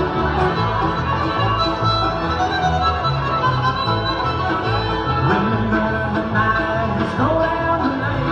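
Bluegrass band playing: a fiddle carries the tune over guitar and a steady, rhythmic bass line.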